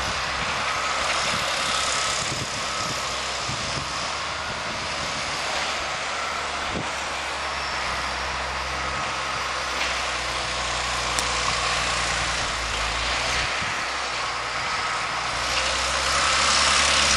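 Heavy diesel logging machinery running steadily, with a constant low hum under a strong steady hiss.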